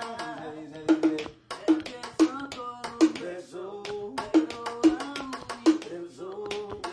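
A man singing a reggaeton-style melody over a beat tapped out with plastic bottles on a floor, with sharp hits about twice a second in an uneven pattern.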